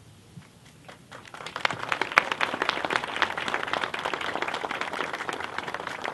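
Crowd applauding: clapping starts about a second in, builds quickly, and holds steady.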